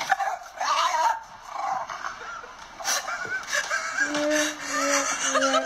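A dog whining and yipping in short, bending cries, then several longer, even-pitched cries in the second half.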